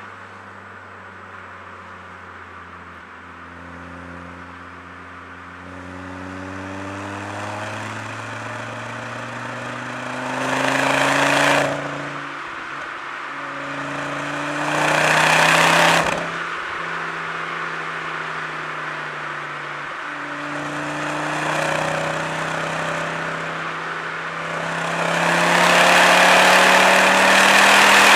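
Ford Focus ST's turbocharged five-cylinder engine with a Milltek resonated exhaust, accelerating through the gears: the engine note climbs, then drops back at each upshift. It is loudest in three full-throttle pulls, about ten, fifteen and twenty-five seconds in.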